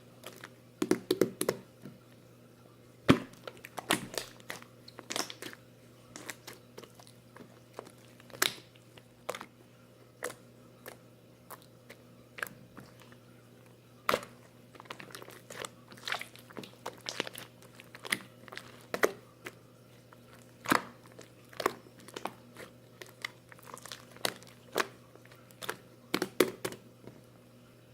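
Irregular small clicks, crunches and crinkles, a few every second, over a steady low hum.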